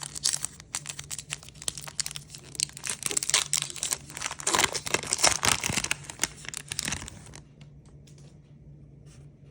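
Foil wrapper of a trading-card pack being torn open and crinkled, a dense run of crackling that stops about seven seconds in.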